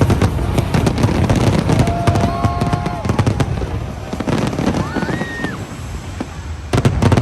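Aerial fireworks going off in quick succession: rapid bangs and crackling, with a tight cluster of loud bangs near the end.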